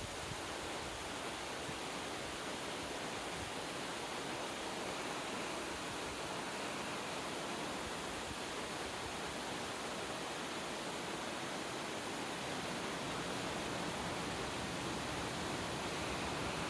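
Steady rush of water from a mountain stream, growing slightly louder near the end.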